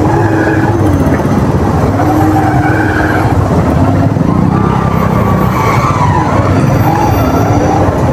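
Motorcycle engine running in slow city traffic, its pitch rising and falling as the throttle opens and closes, over a steady low rumble.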